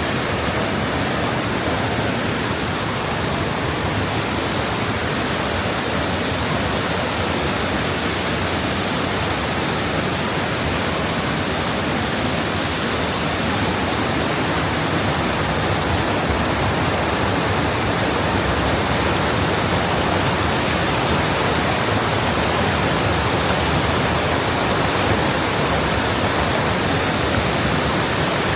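Waterfall on a mountain stream, water falling and rushing steadily as an even, unbroken hiss.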